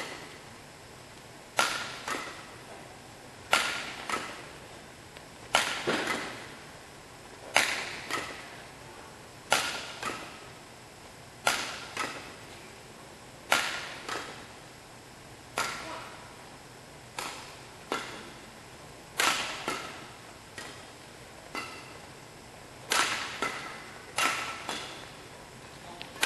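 Badminton rackets striking a shuttlecock, sharp cracks roughly every two seconds, often in pairs about half a second apart, each ringing away in the hall's echo.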